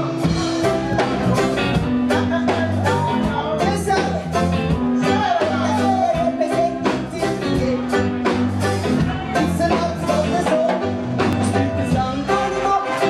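Live reggae band playing a song: a steady, repeating bass line and drums, with a singer's voice on top.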